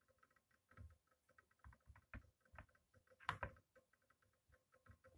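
Faint, irregular ticking and crackling from water heating in a glass test tube over a spirit lamp, the small noises water makes as it heats toward the boil, with a slightly louder click about three seconds in.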